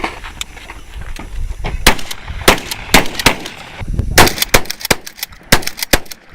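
Shotgun fire: a series of sharp, loud reports between about two and five and a half seconds in, spaced a few tenths of a second to a second apart, over a low rumble.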